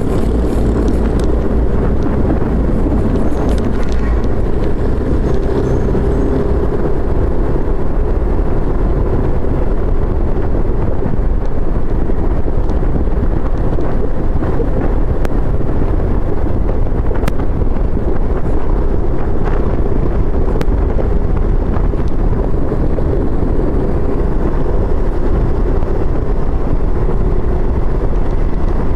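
Motorcycle riding along a city street at about 30 to 40 km/h, its engine running steadily under a constant low rumble of wind and road noise on the camera microphone.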